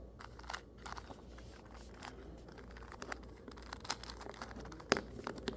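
2x2 Rubik's cube being turned by hand through an algorithm: a quick, irregular run of faint plastic clicks as its layers turn, with a sharper click near the end.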